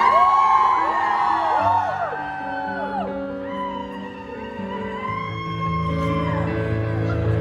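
Live band playing an instrumental passage between sung lines, with audience whoops and screams gliding over the music in the first two seconds.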